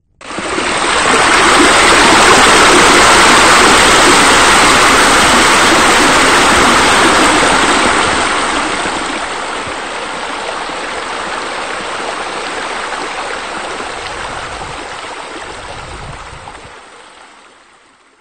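Rushing water of a waterfall, a steady splashing roar with no pitch to it. It starts suddenly, drops in level after about eight seconds and fades away near the end.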